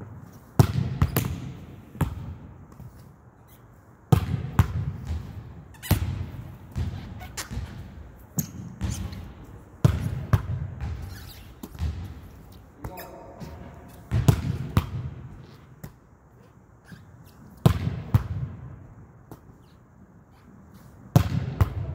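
Volleyball being hit by hand against a block gym wall and rebounding, sharp smacks with an echoing decay, in groups of two or three every few seconds.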